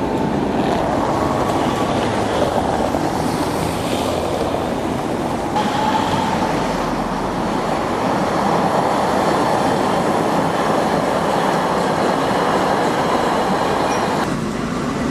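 Street trams rolling past on city rails: a steady rumble of steel wheels on track mixed with traffic, with brief faint wheel squeals. The sound jumps abruptly about five and a half and fourteen seconds in as one pass-by cuts to the next.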